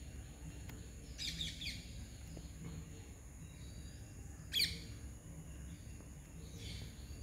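Wild birds calling: a quick run of falling chirps about a second in, one loud, sharp falling call a little past halfway, and a fainter one near the end, over a steady high-pitched insect drone.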